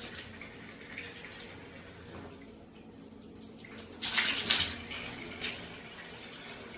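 Water running from a tap, with a louder burst of splashing or spraying about four seconds in.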